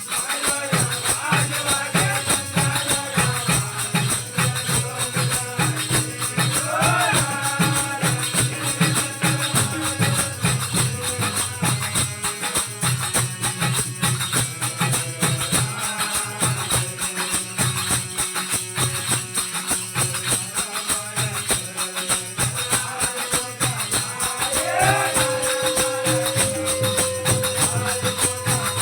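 Devotional aarti music: a fast, steady beat of jingling percussion over a drum-like pulse, with a melody line that holds a long gliding note near the end.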